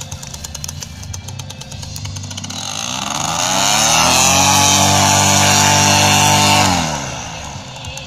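Paramotor engine and propeller idling, then revved up a little over two seconds in, held at high revs for about three seconds, and throttled back down to idle near the end.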